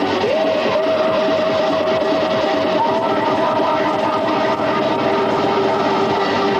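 Guitar music, with one note that slides up at the start and is held for about six seconds over the accompaniment.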